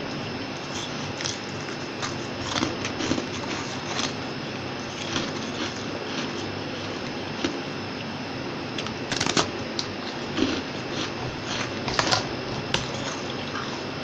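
Biting and chewing into a large disk of soft, fluffy freezer frost: irregular soft crunches and squishes, with a cluster of louder crunches a little past the middle and again near the end, over a steady background hiss.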